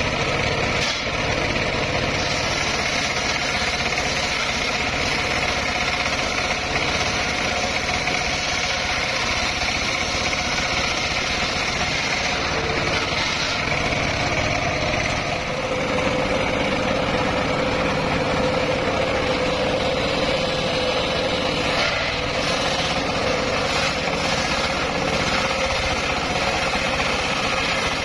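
Homemade engine-driven circular sawmill running steadily while its spinning blade rips lengthwise through a mahogany log, a continuous drone with a steady whine over it.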